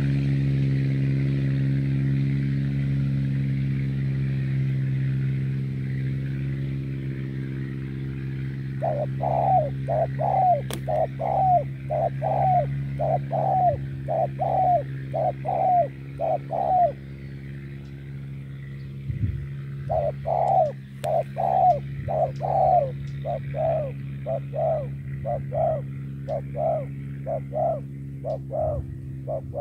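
Spotted doves cooing in long runs of short, rapid coos, about two a second, one run starting about nine seconds in and another about twenty seconds in. A steady low mechanical hum runs underneath.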